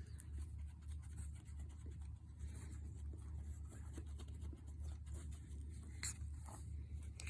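Light scratching and rustling from a puppy moving about, with a couple of sharper short sounds about six seconds in, over a steady low hum.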